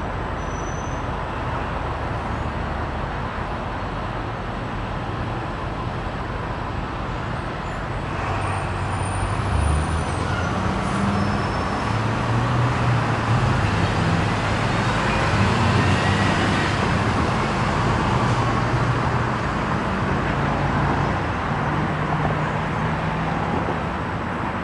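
Steady road traffic noise, with a low engine hum that grows louder about a third of the way in and eases off near the end.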